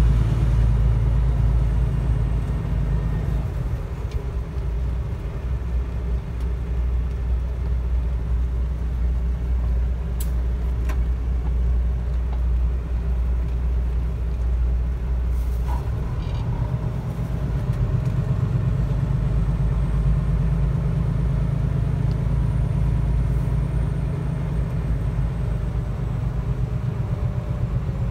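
Semi truck's diesel engine and road noise heard inside the cab while driving: a steady low drone that eases a few seconds in and builds again past the middle, with a couple of faint ticks.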